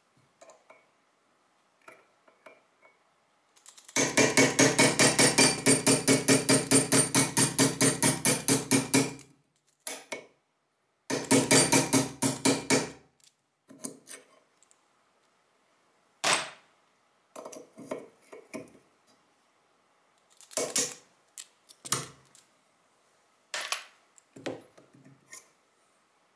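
Hand tools working on a Stgw. 57 steel trigger housing held in a vise during disassembly: about four seconds in, a run of rapid, evenly spaced clicking lasting some five seconds, then a shorter run, then separate sharp taps.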